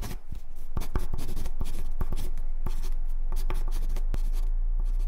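Pencil scratching quickly across paper in short strokes and ticks as letters are sketched, with a low hum underneath that grows louder toward the end.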